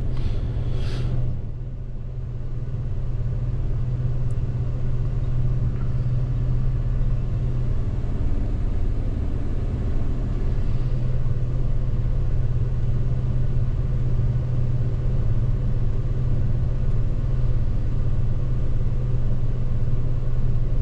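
Gleaner S98 combine running, heard from inside the cab: a steady low engine and machine drone with little change. Two short hissy sounds come within the first second.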